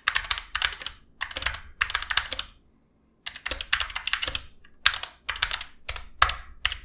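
Typing on a Gamakay MK61 60% keyboard with Gateron yellow linear optical switches: quick runs of keystroke clicks with short pauses, and one longer pause near the middle.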